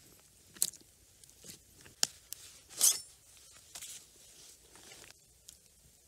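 Raw moose meat being handled on a wooden cutting board: a few separate wet slaps and squishes, the loudest about three seconds in.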